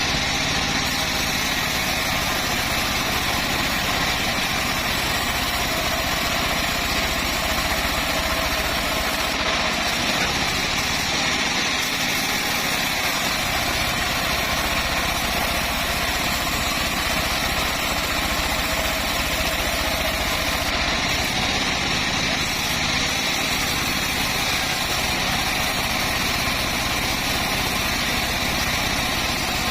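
Home-built bandsaw mill running steadily, with an even engine-like drone throughout.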